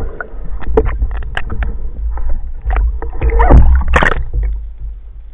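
Freediver's ascent and surfacing heard from an underwater camera: a low water rumble with many crackling bubble clicks, then a loud splash about three and a half seconds in as the diver breaks the surface. The sound fades after that.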